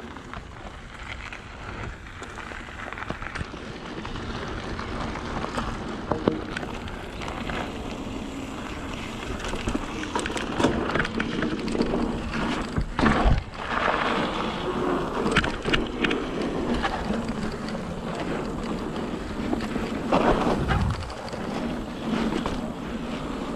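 Mountain bike riding over a dirt and gravel trail: knobby tyres rolling and crunching, with wind rumbling on the microphone. It gets louder over the first several seconds, and sharp knocks and rattles from the bike over bumps come a little past the middle and again near the end.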